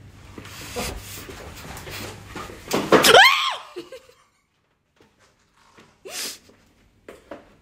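A person's voice: a short, loud cry about three seconds in, its pitch rising and then falling, over a low steady hum that stops right after it.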